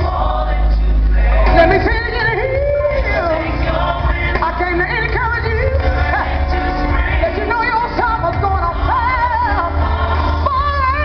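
Live gospel music amplified in a hall: a woman singing long, wavering lines over a band with a heavy bass.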